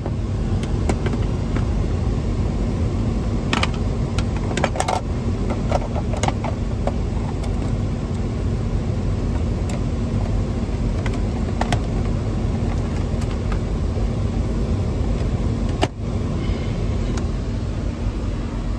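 Steady running noise inside a Ford Expedition's cabin with a constant low hum, broken by scattered sharp clicks and snaps as plastic dash trim is pressed back into place, a cluster of them a few seconds in and single ones later.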